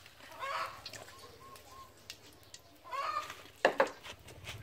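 Chickens clucking: a drawn-out call near the start and again about three seconds in, with a run of short clucks between. A couple of sharp knocks come near the end.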